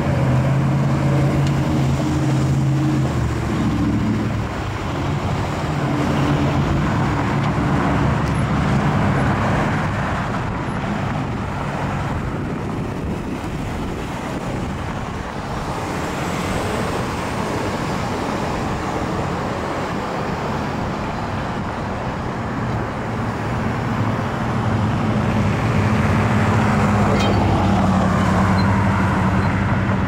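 Road traffic at a multi-lane intersection: cars and trucks passing with a continuous tyre and engine noise. A vehicle engine's low steady hum stands out near the start and again over the last few seconds.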